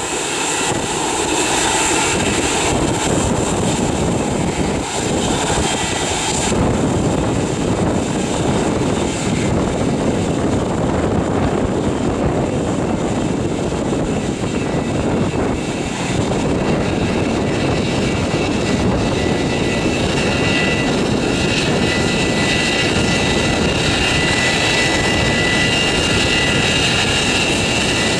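Boeing 727-200's three Pratt & Whitney JT8D turbofan engines running at taxi power: a steady rush of jet noise, with a high whine that grows stronger in the last third.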